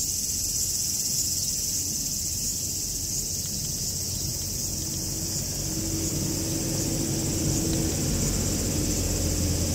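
Steady high-pitched chorus of insects, with a low rumble underneath. A faint steady hum joins about five seconds in.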